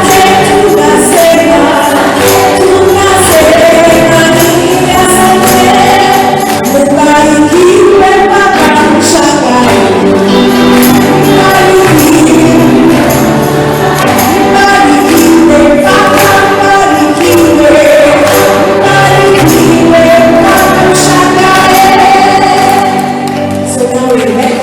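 Group of voices singing a Swahili song together over a steady percussion beat. It dies down near the end.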